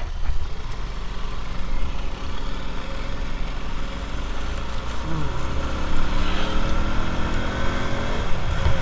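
A 125 cc motorcycle engine running under the rider, its pitch climbing steadily from about halfway through as it accelerates.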